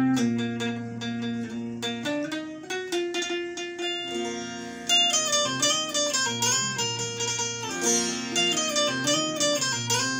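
Electric Indian banjo (bulbul tarang) played solo: a picked melody with notes that slide in pitch as keys are pressed, over strings that keep ringing on one steady low note.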